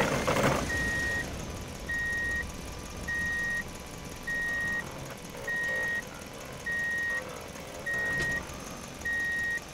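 Electronic reversing-alarm beeping, a single high steady tone about half a second long repeating evenly roughly once every 1.2 seconds, about eight beeps. A brief noisy burst sounds at the very start.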